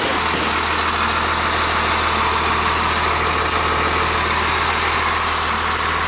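Rear-mounted Cummins 8.3-litre diesel engine of a 1999 Blue Bird TC2000 school bus idling steadily.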